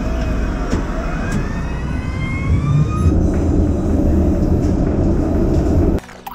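Tram heard from inside the passenger car while it runs: a loud, deep rumble of wheels on rails, with a whine of several tones rising in pitch over the first three seconds as it picks up speed. The rumble drops off suddenly about six seconds in.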